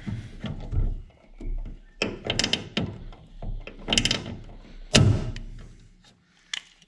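Pop rivet gun setting an aluminium pop rivet with a steel mandrel through sheet aluminium: a series of sharp clicks and clunks as the tool is squeezed, the loudest about five seconds in.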